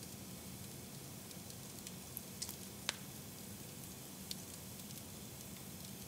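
Fire in a fireplace crackling softly: a faint steady hiss with a few sharp pops, the loudest about three seconds in.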